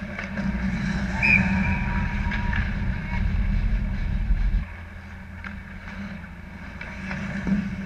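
Ice hockey play heard from the goal net: skates scraping on the ice and sticks and puck clacking over a low rink rumble that eases off about halfway through.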